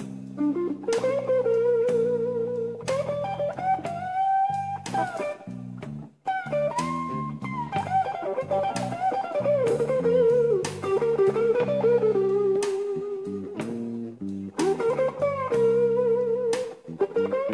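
Live slow blues: an electric guitar plays a lead line of sustained notes with bends and wide vibrato over bass and drums. The band cuts out for a split second about six seconds in, then comes back in.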